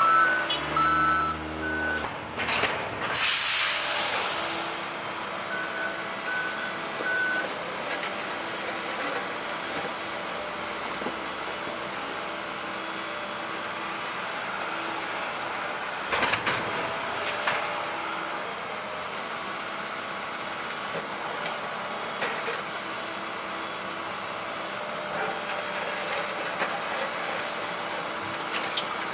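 Heavy construction machinery at a road dig: a backup alarm beeping, a loud burst of hissing air about three seconds in, then engines running steadily with a sharp knock near the middle and another short spell of beeping about six seconds in.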